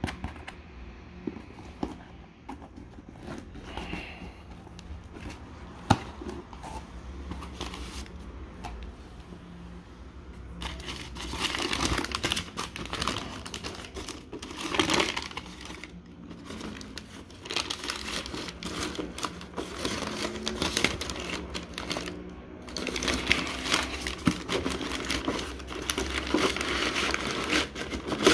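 Brown kraft packing paper crumpling and rustling as hands pull it out of a cardboard shipping box. The first ten seconds or so hold only a few light taps and clicks; the crinkling begins after that, pauses briefly, and is loudest near the end.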